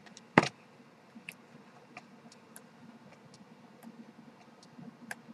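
Pages of a CD photobook being turned by hand: scattered soft clicks and paper taps, with one sharp knock about half a second in.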